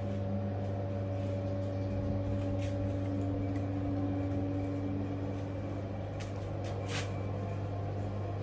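A steady low mechanical hum, with a higher tone in it that fades out about five seconds in, and a few light clicks, the sharpest about seven seconds in.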